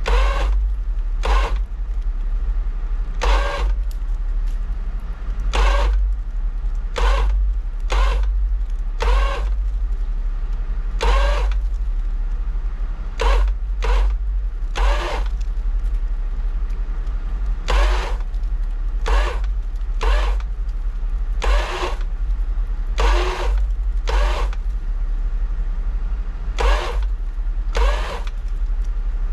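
A vehicle engine running steadily, with short pitched bursts about every one to two seconds.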